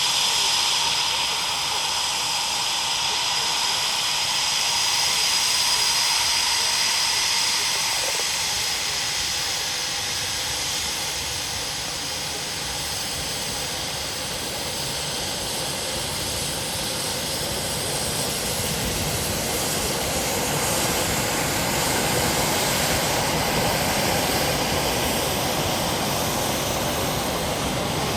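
Jet noise from a Eurofighter Typhoon's twin turbofan engines in flight, a steady high whine over the noise in the first half giving way to a deeper rumble that builds from about fifteen seconds in.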